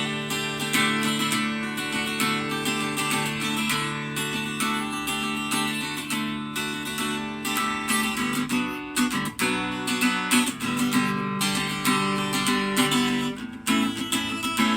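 Deviser LS-610 acoustic guitar strummed in chords, the strings ringing on between strokes, with a brief lull about nine seconds in.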